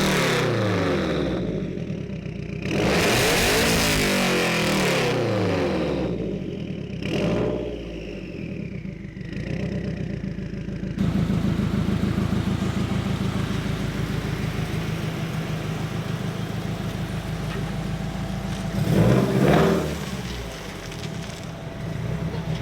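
2015 Subaru WRX's turbocharged 2.0-litre flat-four through a Tomei unequal-length header and aftermarket exhaust, revving hard with the engine pitch falling and climbing several times. About eleven seconds in it changes to a steady idle with an even pulsing rumble, with a quick rev blip about nineteen seconds in.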